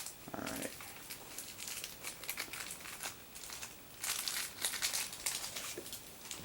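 Plastic packaging crinkling as it is handled and opened by hand, in quick irregular crackles that get denser about four seconds in.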